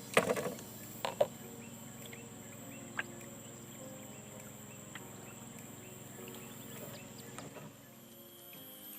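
Steady high insect drone with small scattered chirps, broken by a few sharp knocks just after the start and single ones about one and three seconds in.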